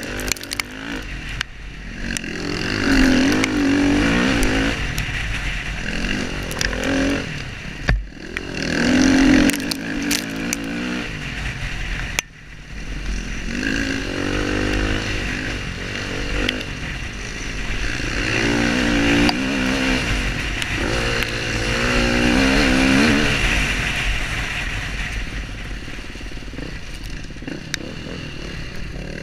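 KTM dirt bike engine running under load, its pitch climbing and falling every few seconds as the rider accelerates and rolls off along the trail. Steady wind noise runs underneath, with occasional knocks.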